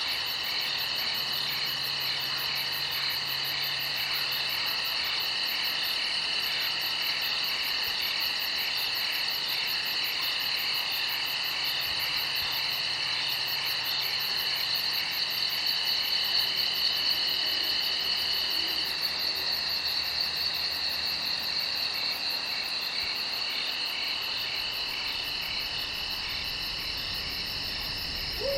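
Crickets chirping at night in a steady, many-layered high-pitched trill, with a faster pulsing chirp on top; one of the trilling voices stops a little past halfway through and comes back a few seconds later.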